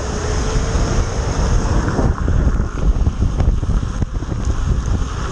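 Wind buffeting the microphone of a moving action camera: a steady, heavy low rumble with hiss.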